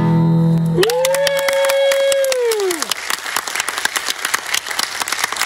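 The last chord of two nylon-string classical guitars rings, then stops about a second in as an audience breaks into applause. Over the clapping, one high, held cheer rises, holds for about two seconds and falls away.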